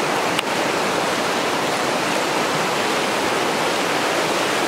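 Fast-flowing river water rushing steadily over riffles, with a brief click about half a second in.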